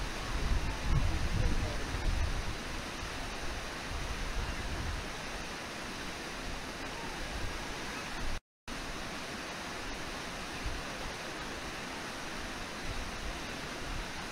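Steady rush of the Brooks Falls waterfall and river rapids, with a low rumble over the first couple of seconds. The sound cuts out briefly about eight seconds in.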